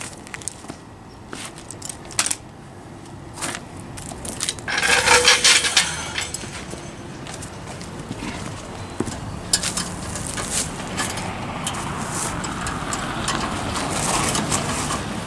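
A hand wrench ratcheting, with scattered metal clicks and knocks as a rear shock mount bolt is tightened by hand. There is a louder scraping, rustling stretch about five seconds in.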